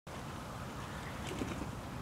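Wind buffeting the microphone in open farmland: a steady low rumble and rush, with a few faint light clicks about one and a half seconds in.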